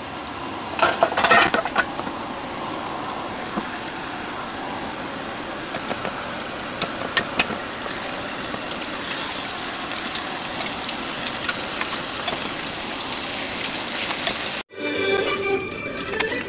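A pan of liquid heating on the stove gives a steady hiss, with dishes and utensils clinking about a second in and again around seven seconds. The sound cuts off suddenly near the end.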